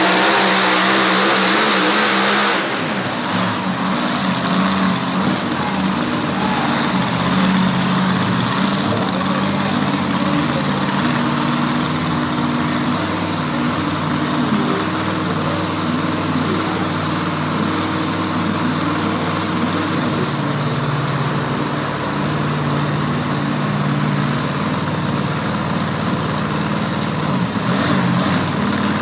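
Modified 4WD pulling truck's engine running hard and steady under load, with a louder hiss on top that cuts off about two and a half seconds in.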